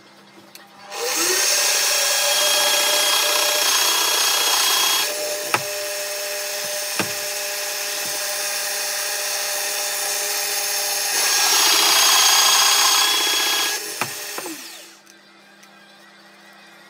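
Benchtop pillar drill motor spinning up about a second in and running, boring oak with a Forstner bit, louder while the bit is cutting, with two sharp knocks midway. The motor winds down with a falling pitch about fifteen seconds in.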